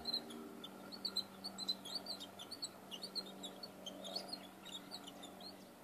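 Small birds chirping: many short, high, quick calls overlapping at an irregular pace.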